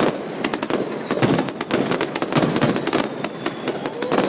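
Aerial fireworks going off in a rapid barrage of sharp bangs and crackles, several a second.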